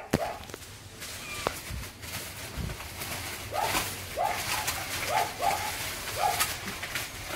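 Newborn kittens mewing from inside black plastic garbage bags: a string of short, high cries starting about halfway through, over the crackle and rustle of the bags being pulled at by hand.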